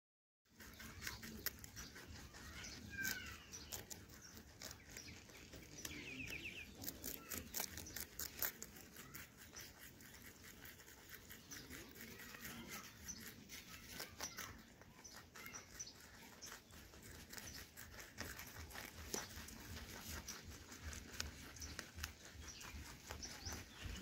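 Rabbits chewing and tearing carrot tops and leafy greens close up: a steady run of quick, crisp crunches and leaf rustles.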